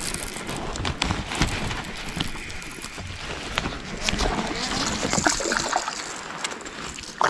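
Fishing reel being cranked while a small largemouth bass splashes and thrashes at the surface as it is reeled up to a kayak, with repeated clicks and splashes.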